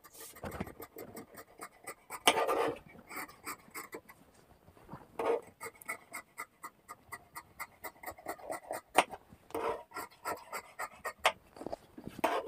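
Large tailor's scissors cutting through cotton cloth: repeated snipping strokes a few times a second, some louder and longer than others.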